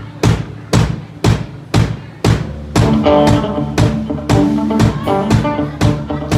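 A live country band starting a song: the drum kit keeps a steady beat of about two hits a second, and nearly three seconds in the electric guitars and the rest of the band come in.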